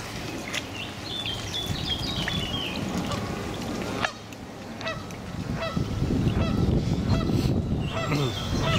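Geese honking repeatedly, with water splashing at the lake's edge in the first few seconds and a rising rumble of wind on the microphone through the second half.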